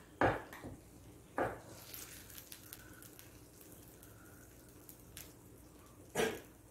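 Metal spoon scooping saucy, cheese-baked cauliflower out of a glass baking dish onto a small plate: a few sharp knocks and scrapes of spoon on dish and plate, with soft wet squishing. The loudest knock comes just after the start, another about a second and a half in, and one more near the end.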